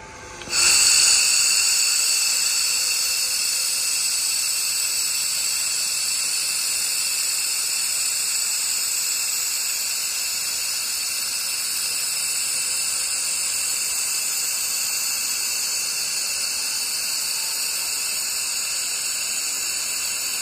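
2.5 kW handheld laser welder running a continuous splice weld on 3 mm mild steel: a steady, loud, high-pitched hiss that starts abruptly about half a second in and holds evenly throughout.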